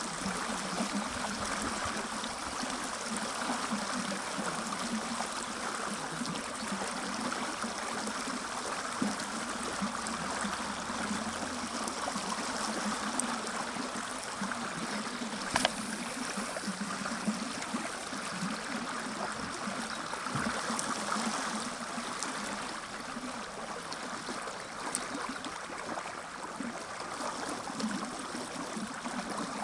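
Fast-flowing mountain river running steadily over stones, with one short click about halfway through.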